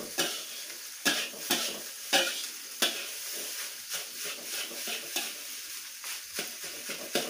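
Fried rice sizzling in a metal wok while a metal spatula scrapes and strikes against the pan at an uneven pace as the rice is stir-fried.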